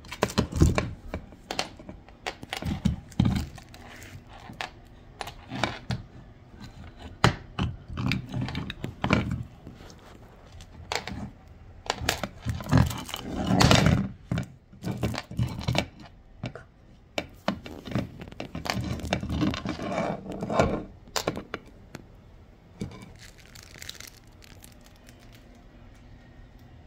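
German shepherd puppy gnawing a moose antler: irregular scraping and clicking of teeth on the antler, with occasional knocks, dying down about three quarters of the way through.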